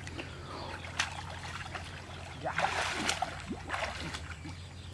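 Muddy water sloshing and splashing as hands grope through a shallow pond, in a few short bursts, with a sharp knock about a second in. A steady low hum runs underneath.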